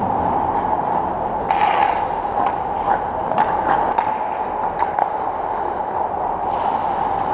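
Ice hockey skates scraping the ice and several sharp clicks of sticks and puck during play around the net, over a steady background hum. The loudest scrape comes about a second and a half in, and the clicks follow over the next few seconds.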